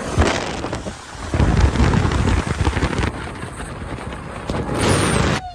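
Loud rushing storm noise of wind and rain, with a deep rumble that swells about a second and a half in. It cuts off abruptly near the end.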